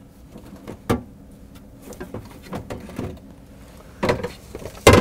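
Items being moved about in an open refrigerator: a sharp knock about a second in, a few light clicks and rattles, and a louder thump near the end.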